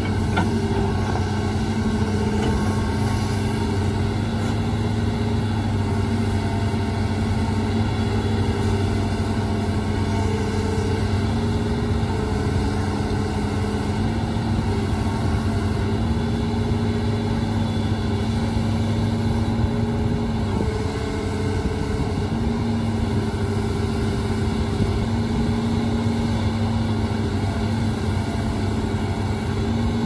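Hitachi crawler excavator's diesel engine running steadily at working revs, its note shifting slightly up and down every few seconds as the hydraulics take load.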